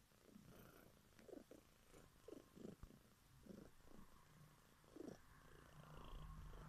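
Black-and-white domestic cat purring faintly while being stroked, in a pulsing rhythm of about two beats a second.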